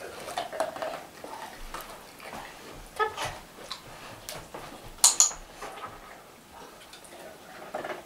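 A large dog moving about on a hard floor: scattered clicks and light metallic clinks, with a ringing clink about three seconds in and the loudest pair of sharp clicks about five seconds in.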